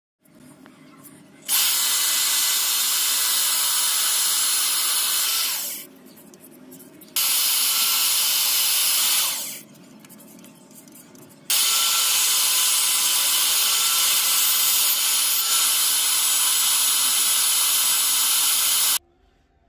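Electric drill clamped in a bench vise as a makeshift lathe, running in three spells of several seconds with short pauses between and cutting off suddenly near the end. A hand file held against the small metal part spinning in the chuck adds a steady hiss.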